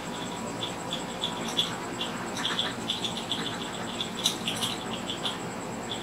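Small, irregular ticks and crackles as the connector pads on a phone's circuit board are cleaned with soldering tools, over a steady faint high whine.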